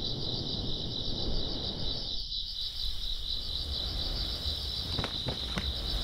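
A steady, high chirring chorus of insects over a low rumble, with a few faint ticks near the end.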